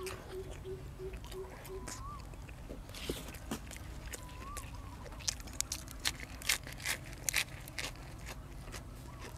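A person eating close to the microphone: chewing, with crisp crunches as raw fresh vegetables are bitten, most of them packed into the second half. A faint short whistle repeats every two to three seconds behind it.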